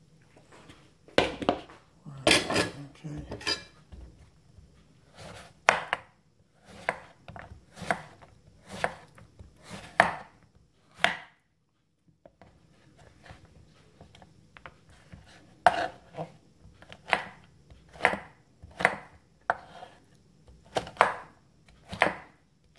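Kitchen knife cutting peeled bottle gourd on a wooden cutting board: a string of sharp knocks as the blade hits the board, roughly one a second, with a short pause near the middle. In the first few seconds a bowl is set down with a clatter.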